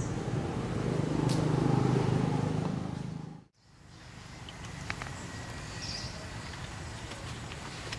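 Low engine rumble of a passing motor vehicle, swelling then fading, cut off abruptly about three and a half seconds in. Then a quieter outdoor background with a few small clicks and faint high chirps.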